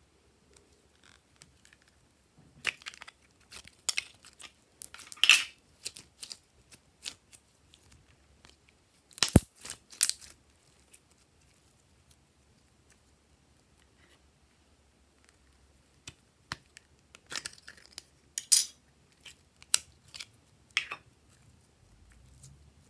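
Hands squeezing and stretching blue glossy glitter slime, giving scattered sticky clicks, pops and crackles with quiet gaps between them.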